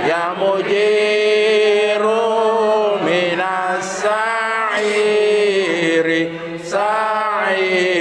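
Voices chanting an Arabic sholawat in praise of the Prophet, in long held notes that slide between pitches, with short breaks between phrases.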